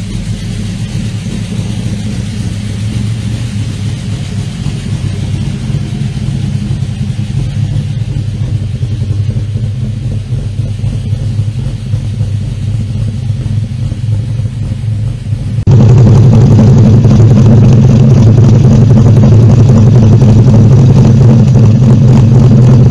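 Modified Chevrolet Chevy engine idling through its exhaust, a steady low rumble. About two-thirds of the way through it suddenly becomes much louder, heard right at the tailpipe.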